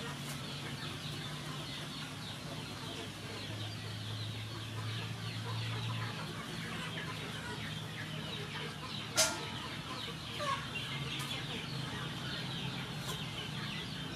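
A flock of farmyard poultry calling and chirping continuously over a low steady hum, with one sharp louder call about nine seconds in and a smaller one about a second later.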